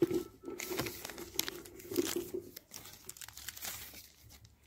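Clear plastic grafting film crinkling and rustling in irregular crackles as it is pulled, stretched and wrapped around a grafted apple branch. The crackling thins out near the end.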